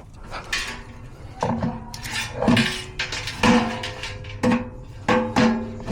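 Repeated sharp metal clanks at uneven intervals, each ringing briefly with a pitched tone. This is the metal fan blade and housing of an air-conditioner condenser being tested after a fan motor replacement. The blade position then seems to need setting lower.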